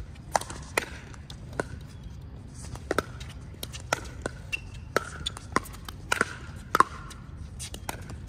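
Pickleball rally: a string of sharp pops as paddles strike the plastic ball and it bounces on the hard court, back and forth every half second to a second, the loudest hit about seven seconds in.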